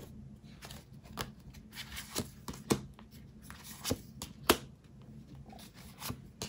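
Tarot cards being handled and laid down on a table: a scattering of short, sharp card slaps and snaps, the loudest about halfway through.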